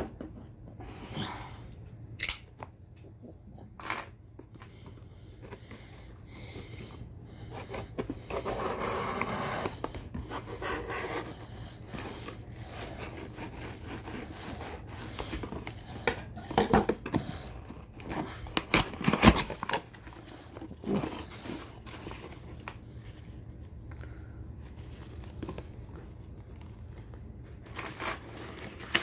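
A serrated folding knife slicing through packing tape and cardboard on a shipping box, then the cardboard being torn and pulled open. There are scattered scrapes and rustles, and a few sharp knocks, the loudest about 19 seconds in.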